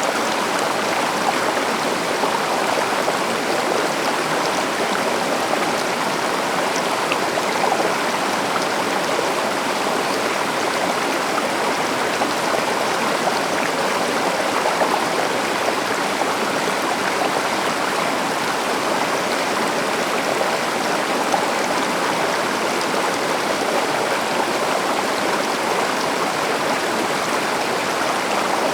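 A forest river or stream flowing steadily, a constant rushing of water.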